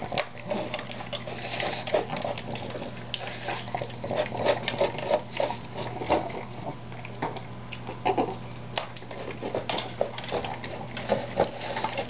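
A pug eating from a plastic bowl, with irregular small clicks and knocks as its muzzle and food hit the plastic, and the bowl is nudged across the floor.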